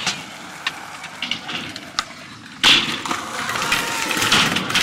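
Skateboard riding: sharp clacks of the board hitting the ramp in the first couple of seconds, then a louder, steady rolling of the wheels on concrete from about two and a half seconds in.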